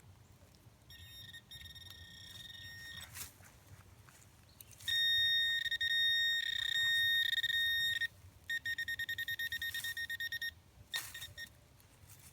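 Metal detector sounding on a target: a high steady electronic beep, faint at first, then loud and held for about three seconds, then breaking into rapid pulsing beeps.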